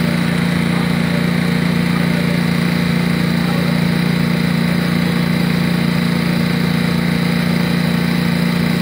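A small engine running steadily with an even, unchanging hum.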